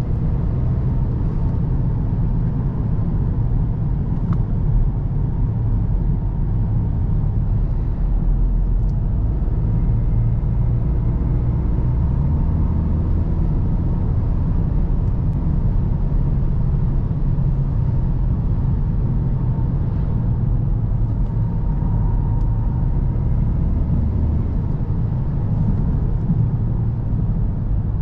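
VW Golf GTD's 2.0-litre TDI diesel engine and road noise while the car drives along at a steady pace: an even low rumble.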